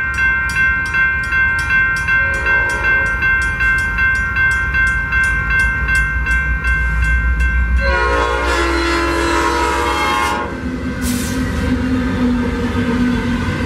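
Grade-crossing bells dinging steadily at about two and a half strikes a second as the freight approaches. About eight seconds in, the lead Norfolk Southern GE Dash 9-40CW sounds its P5 five-chime horn in one long blast of about two and a half seconds. The low drone and rumble of the passing diesel locomotives follows.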